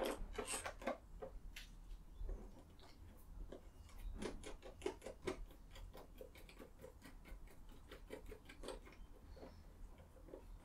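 Small hardware being fitted by hand to a welding helmet's plastic shell and bracket: faint, irregular clicks and taps of plastic and metal parts, busiest in the middle.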